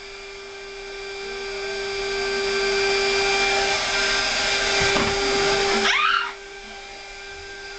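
Vacuum cleaner running with a steady motor hum. Its rushing airflow swells over the first few seconds and then drops off suddenly about six seconds in, while the hum goes on. A single knock is heard about five seconds in.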